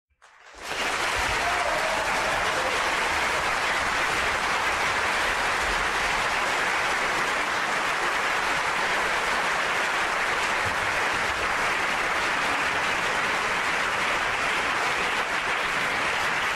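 Audience applauding: a steady wash of clapping that builds up quickly in the first second and holds level.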